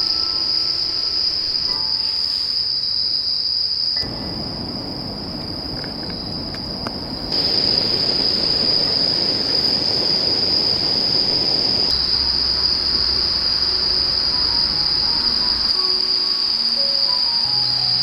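Crickets chirring in a steady, high-pitched trill. A low rushing noise joins them abruptly about four seconds in and stops about three seconds later.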